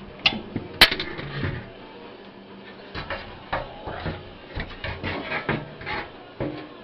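Irregular metal knocks and clatter as an air conditioner's blower fan motor on its sheet-metal mounting plate is worked loose and lifted out of the unit's housing, with one sharp click just under a second in.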